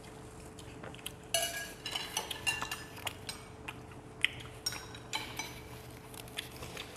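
Metal spoons clinking and scraping against ceramic soup bowls during a meal, a busy run of short ringing clinks starting about a second in, over a faint steady hum.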